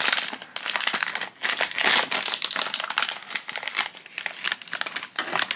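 A blind bag crinkling as it is torn open and rummaged by hand: a run of irregular crackles.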